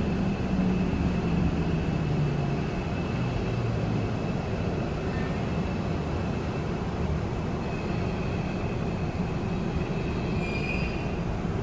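Busan Metro 1000-series subway car with Toshiba permanent-magnet synchronous traction motors, heard from inside while braking to a stop. The motor tone falls in pitch over the first couple of seconds over a steady running rumble and a thin high whistle, with a short squeal near the end as the car comes to rest.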